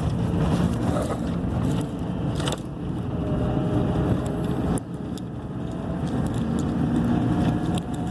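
Steady engine and road rumble inside a moving truck's cab, with a few light clicks and rattles.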